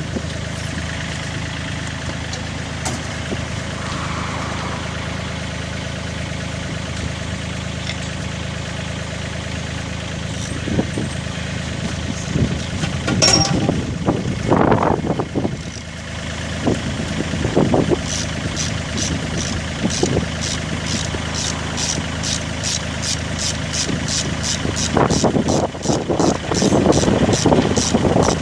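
Diesel engine of a 3.5-tonne Wacker Neuson mini excavator running steadily, with louder uneven surges under hydraulic load from about halfway. In the last third a fast, regular ticking of about three to four clicks a second runs over the engine.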